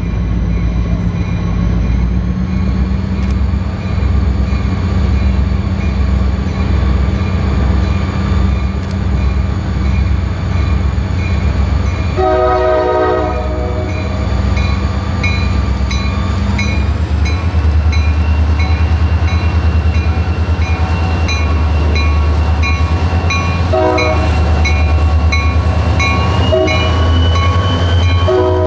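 Two CSX diesel freight locomotives approaching and drawing level, their engines' low drone growing louder as they near. The air horn sounds a long blast about halfway through, then two short blasts near the end and another as the locomotives pass, over a bell ringing about twice a second.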